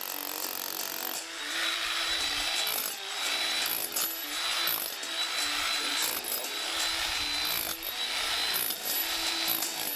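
GEKO 1050 W electric demolition hammer with a chisel bit breaking up a white hollow building block, run in repeated bursts of about one to two seconds with short pauses between them and a steady high whine over the hammering.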